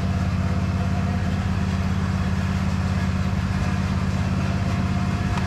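John Deere riding lawn mower engine running steadily at a low, even speed, shortly after being started.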